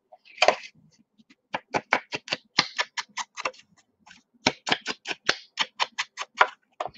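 Ink pad dabbed and swiped along the edges of cardstock pieces to distress them: one longer scuff, then a quick run of short taps and scuffs, about four or five a second.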